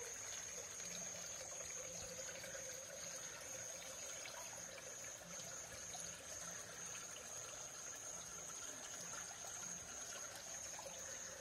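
Faint, steady trickle of creek water, with a thin, steady high-pitched tone above it.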